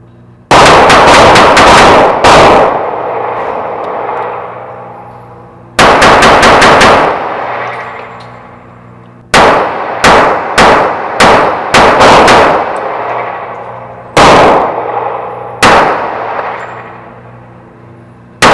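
Shots from a small .25 ACP Raven pocket pistol, some in quick strings and some spaced out singly, each a sharp crack with a long echoing tail in the indoor range.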